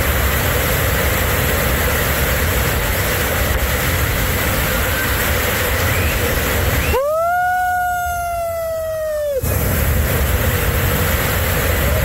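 Steady roar of a monsoon-swollen waterfall in heavy flow. About seven seconds in, the water noise cuts out and a single held, whistle-like tone with a slight swoop sounds for about two and a half seconds, then the roar returns abruptly.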